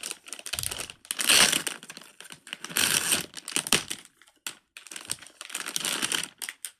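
Crinkling and rustling of plastic being handled close to the microphone, in several bursts with short pauses, stopping shortly before the end.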